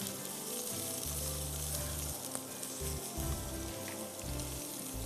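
Chopped onions sizzling and frying in hot cooking oil in a non-stick karahi, stirred with a spatula; a steady, even sizzle.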